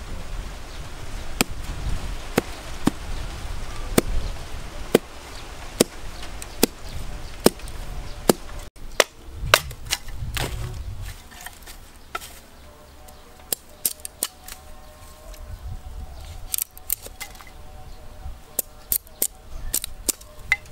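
Repeated sharp knocks of a hatchet blade being driven into upright sticks, struck by a hammer and by a wooden baton, splitting them into kindling: single blows about one or two a second, with a short lull partway through.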